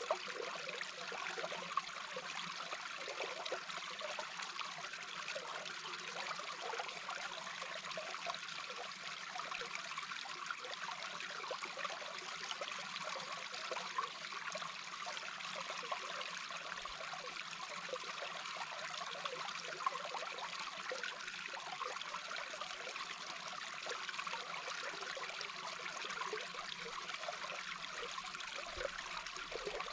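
A small brook heard through an underwater microphone: a steady, unbroken rush of flowing water, dotted with many small bubbly blips.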